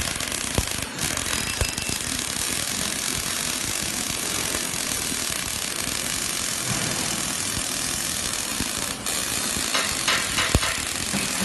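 Two robotic MIG welding arcs crackling and sizzling steadily as the torches lay weld beads, with a few sharper pops.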